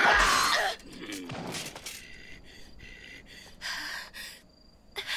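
A loud, harsh burst at the start, then a young boy's breathy gasps and whimpers, short and broken, in an anime scene's audio.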